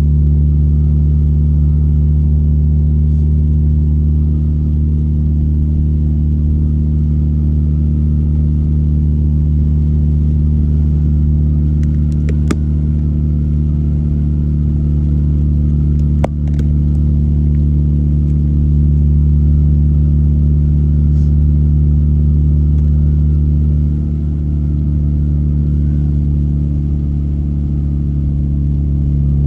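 A car's steady engine and road drone heard from inside the cabin while driving, with two brief sharp clicks about twelve and sixteen seconds in.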